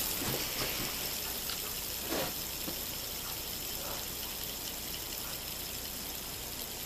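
Hand-held fidget spinner spinning freely on its bearing, a steady, even whirring hiss.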